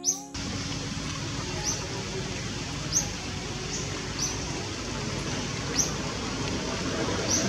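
Outdoor forest ambience: a steady hiss with a short, high, rising chirp repeating about every second and a half, as from a calling bird. The sound drops out briefly right at the start.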